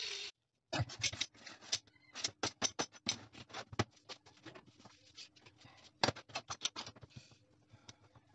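Short cut pieces of 40x30 mm rectangular steel tube being set down and pushed into a row on a workbench: many irregular light metal clinks and knocks. An angle grinder's cutting noise stops abruptly right at the start.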